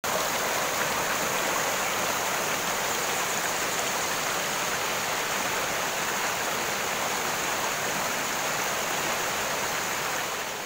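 Steady rushing of a rocky mountain stream and waterfall, fading out near the end.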